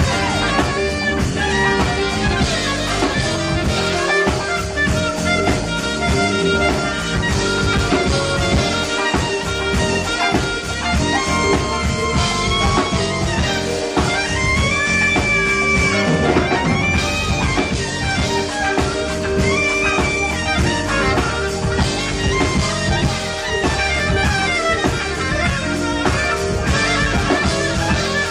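A band playing instrumental jazz-R&B, with a saxophone carrying the lead over drums.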